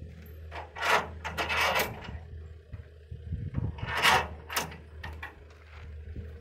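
A few short, noisy scraping sounds: two close together about a second in and another pair about four seconds in, over a steady low hum.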